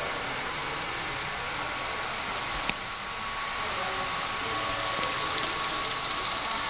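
N scale model train running past on its layout, a steady whir of the small locomotive and its wheels on the track over the general noise of the hall. It gets a little louder in the second half, with one sharp click about two and a half seconds in.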